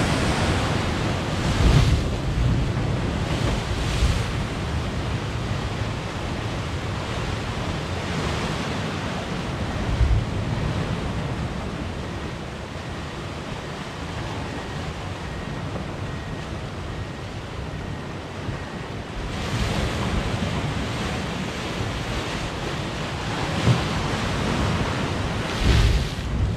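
Sea waves surging and washing against a rocky shore, rising and falling, with a few low thumps as surges strike a hollow in the rock. Wind rumbles on the microphone.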